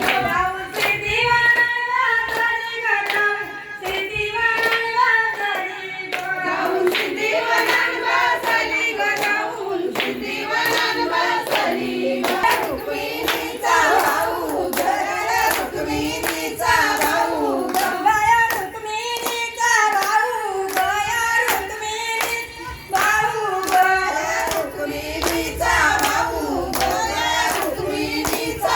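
A woman singing a traditional Marathi Ganpati devotional song, with steady rhythmic hand-clapping keeping the beat throughout.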